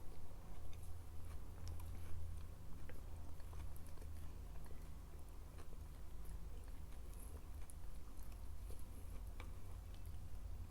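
A person chewing and biting food close to the microphone, with many small wet clicks scattered throughout, over a steady low hum.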